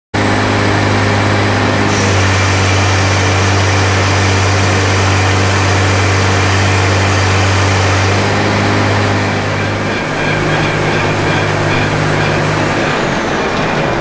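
Massey Ferguson 1190 tractor's engine running steadily with a strong low hum, its note shifting slightly about two-thirds of the way through.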